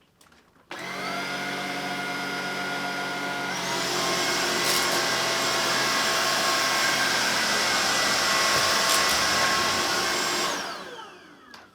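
Tineco Pure One X cordless stick vacuum switched on, its motor whine rising as it spins up, then stepping up to a higher, louder speed about three seconds in as it goes to max power. Near the end it is switched off and the whine falls away as the motor spins down.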